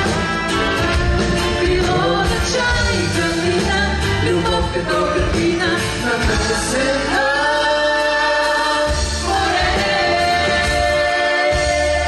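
A woman and a man singing a Bulgarian pop duet over a live band, building to the song's close with two long held notes in the last five seconds.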